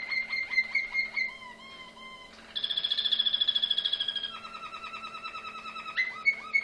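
Malinois (Waterslager) canary singing a sequence of song tours. Repeated clear notes give way to a softer passage, then a loud, fast high trill about two and a half seconds in. A lower rolling phrase follows, and the repeated notes return near the end.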